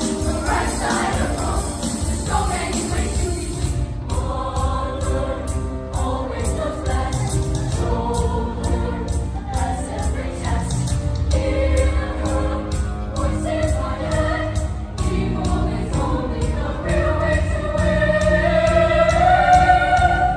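A choir singing with instrumental backing, ending on a long held note.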